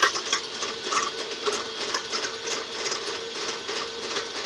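KitchenAid stand mixer running with its paddle attachment, creaming butter and sugar in the bowl: a steady motor hum under a busy, irregular rattling clatter.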